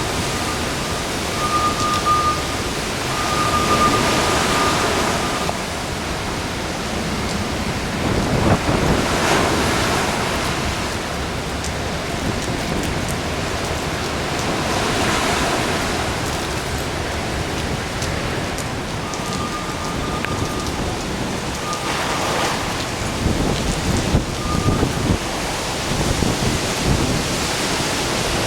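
Typhoon wind blasting across the microphone with high waves breaking on the lake shore, swelling and easing in gusts every few seconds. A thin high whistle sounds on and off near the start and again past the middle.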